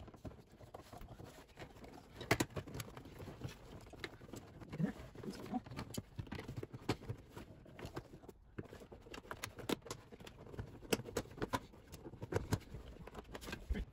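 Irregular light clicks, taps and knocks of plastic car interior trim being worked loose by hand and with a flathead screwdriver at the door sill.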